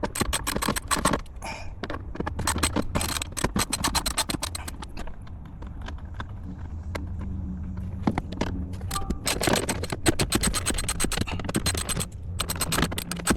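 Hand ratchet with a 5/16 socket clicking rapidly in runs as it turns a trim screw, easing off for a few seconds in the middle, over a steady low hum.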